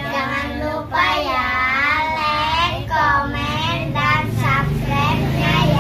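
Three young girls singing together in chorus, holding long notes that slide up and down.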